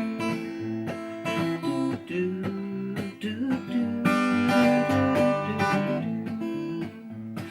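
Acoustic guitar strummed and picked through an instrumental break in a song, with chords changing every second or so.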